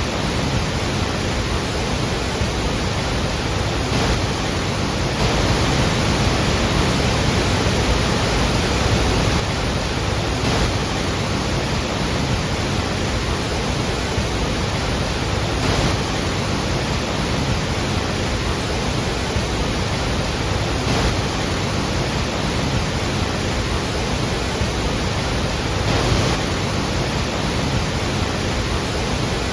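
Waterfall: a massive volume of water falling and crashing into the river below, a dense, steady rush of noise.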